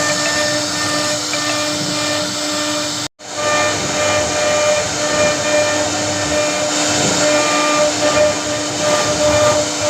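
CNC router spindle running and carving wood: a steady high whine over a loud cutting hiss. It drops out for a split second about three seconds in.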